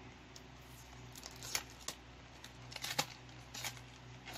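Small plastic cosmetics packaging of a body glitter being opened by hand: a handful of short, sharp crinkles and clicks, the loudest about three seconds in, over a low steady hum.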